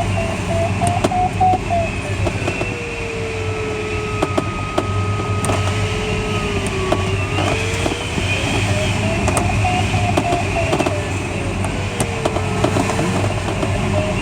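Glider cockpit airflow rushing steadily past the canopy, with an electronic variometer's audio tone over it. The tone gives quick rising beeps in lift at the start and again about eight seconds in, and in between changes to a continuous lower tone that slides down and back up as the glider sinks.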